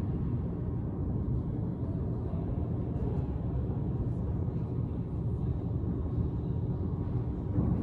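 Steady low rumble of the enclosed court, with a few faint knocks of a handball being hit and striking the walls, the clearest near the end.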